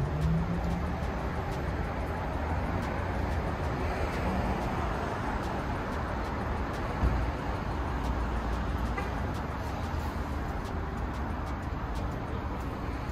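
City street traffic: a steady wash of passing cars with a low rumble, and a single brief thud about seven seconds in.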